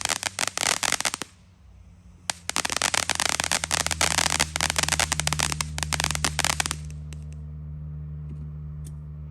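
Strings of firecrackers going off in rapid crackling runs, with a short pause after about a second, and dying away to a few scattered pops near the end over a steady low hum.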